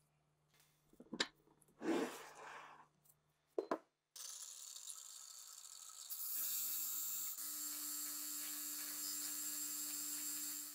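A few clicks and a short scrape of metal handling, then a machine starts up about four seconds in: a steady hiss over a low motor hum. It gets louder about two seconds later and cuts off suddenly at the end.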